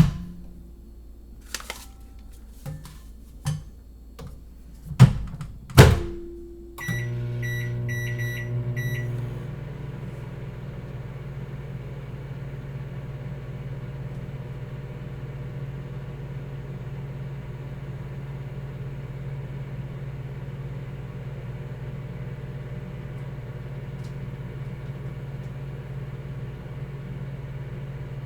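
Microwave oven being loaded and started: a few clicks and knocks, the loudest two about five and six seconds in as the door shuts, then a run of short keypad beeps. The oven then starts up and runs with a steady low hum, no popping yet.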